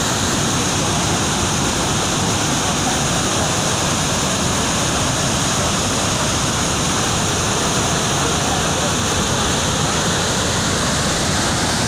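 Water pouring through a dam's open spillway gates and crashing down the concrete chute into the river: a loud, steady rushing with no let-up.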